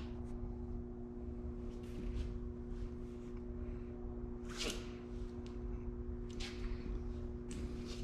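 A steady low electrical hum with a few faint, brief handling noises; the clearest, about halfway through, has a short falling squeak.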